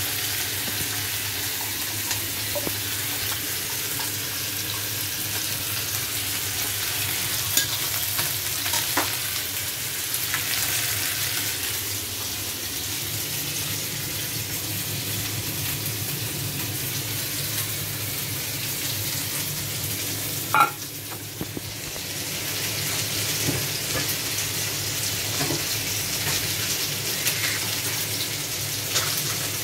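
Chicken wings frying in hot oil in a wok, a steady sizzle with a few sharp clicks. About two-thirds of the way through the sizzle drops for a second or so after a louder click, then comes back.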